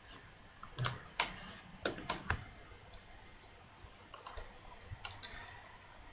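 Scattered clicks of a computer mouse and keyboard, a few sharp ones in the first couple of seconds and fainter ones later.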